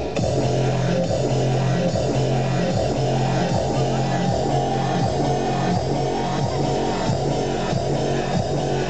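Recorded dance music with guitar played loud over a sonidero's sound system, with a steady beat and a repeating bass line.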